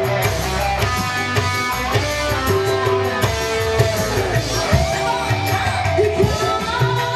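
Live dangdut band playing loud through a PA: a melody over a steady drum beat, with female singers' voices.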